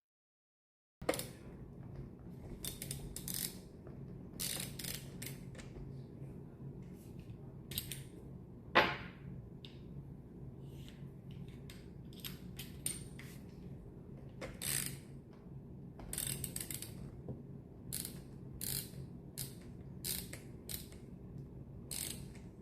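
Irregular clicks, ticks and short scrapes of small parts and hand tools being handled, over a steady low hum. One sharper knock comes about nine seconds in.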